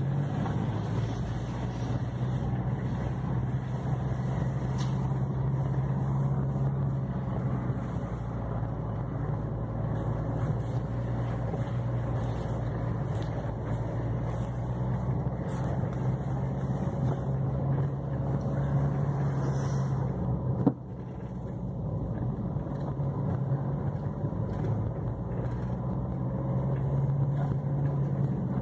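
Car engine and tyre noise heard from inside the cabin while driving along a rough dirt forest track: a steady low drone that drops suddenly about 21 seconds in, then builds back up.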